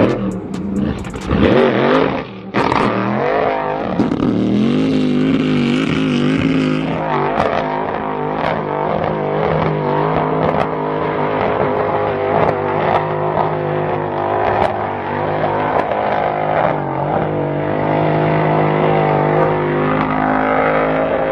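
A 4x4 SUV's engine running at high revs under load as it powers up a sand dune. The pitch rises and falls over the first several seconds, then holds steadier.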